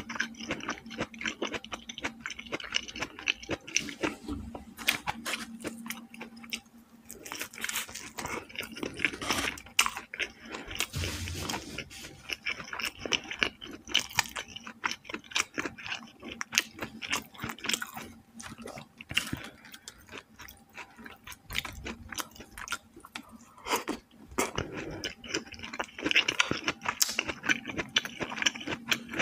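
A person chewing food close to the microphone: a dense, continuous run of short clicks and smacks from the mouth.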